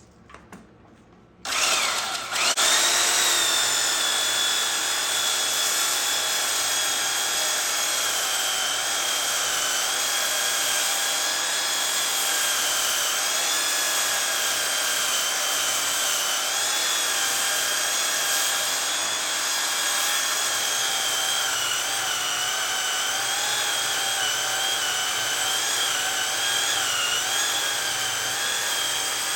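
Small electric sander switched on about a second and a half in, its motor whine rising to speed, then running steadily with a high whine while sanding cherry wood.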